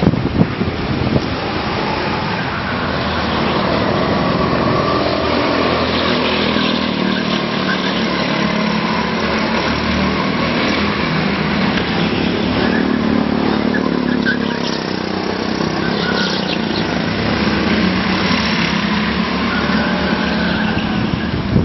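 Go-kart engine running continuously at speed, its pitch wavering slightly, heard from on board the kart.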